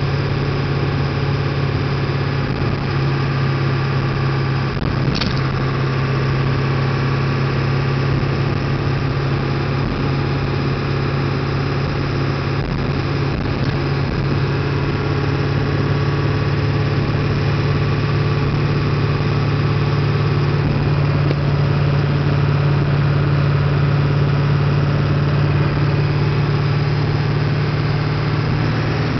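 7.3-litre V8 diesel truck engine running steadily while driving, a constant low drone with one brief sharp click about five seconds in. It is recorded to catch a knock and a rising 'kachuu' noise under load that the owner suspects may come from the injectors.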